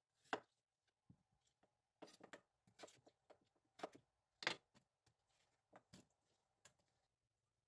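Chef's knife slicing through a peeled Korean radish onto a wooden cutting board: a run of sharp, irregular chops, the loudest about half a second in and about four and a half seconds in, stopping shortly before the end.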